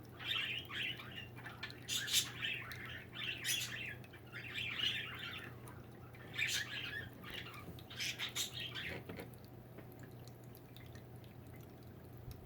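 Birds calling in short bursts, about one a second, that die away about nine seconds in.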